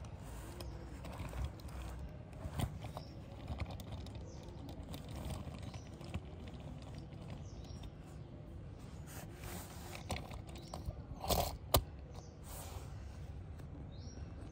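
Faint handling noise of a toy dump truck: light scattered clicks and scrapes of plastic, with a couple of sharper clicks about eleven seconds in as the tipper bed is raised.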